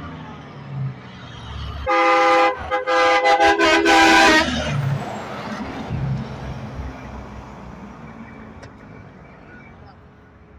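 Semi truck's air horn sounding a chord: one long blast about two seconds in, then a quick string of short toots. The truck then passes close with engine and tyre noise that fades away.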